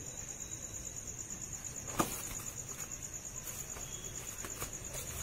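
Crickets chirping in a steady, high, fast-pulsing trill. One sharp thump about two seconds in, and a few faint scuffs later on.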